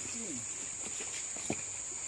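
Steady high-pitched insect drone of tropical forest, over an even background rush, with scattered soft footsteps and knocks; one sharper knock comes about a second and a half in.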